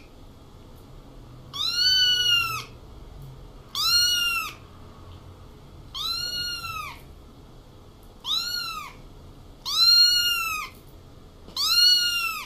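Young ginger kitten meowing six times, about every two seconds. Each meow is high-pitched and rises then falls in pitch.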